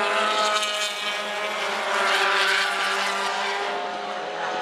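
Engines of several open-cockpit sports-prototype race cars running at high revs through a corner, a steady note of several overlapping tones.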